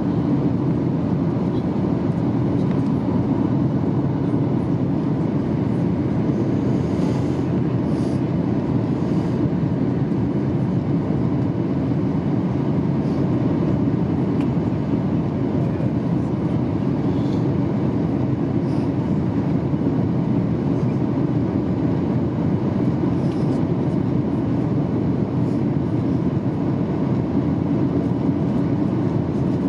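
Steady low cabin drone inside a Boeing 737-800 in flight, the CFM56-7B turbofans and the airflow over the fuselage heard together from a window seat over the wing. A few faint ticks sound through it.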